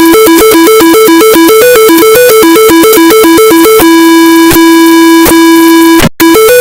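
Loud synthesized tornado emergency-alert alarm: a harsh buzzy tone rapidly alternating between two pitches. About two-thirds of the way in it holds steady on the lower pitch. It cuts out for an instant near the end, then the two-pitch warble resumes.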